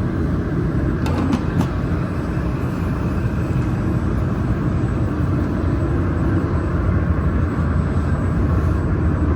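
Steady low hum and rumble of a laser welder's water chiller running, with a few light clicks about a second in.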